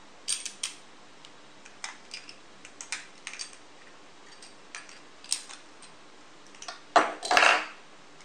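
Clicks and clinks of a battle spinning top's metal attack ring and plastic parts being handled and fitted together, with a louder clatter about seven seconds in.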